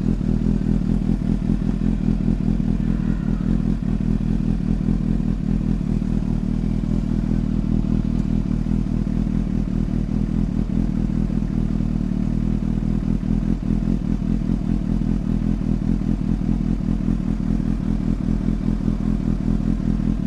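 Suzuki GSX-S750's inline-four engine idling steadily through an aftermarket SC Project slip-on exhaust, with the pre-silencer still in place.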